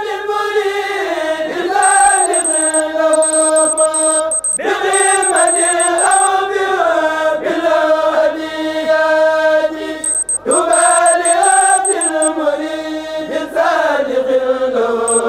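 Chanted religious vocal music: voices holding long, slowly gliding notes in phrases of about five seconds, with two short breaks between phrases.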